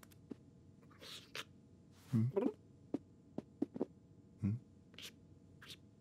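Sparse soft cartoon sound effects: scattered small clicks and taps, with two short, low vocal murmurs about two seconds and four and a half seconds in.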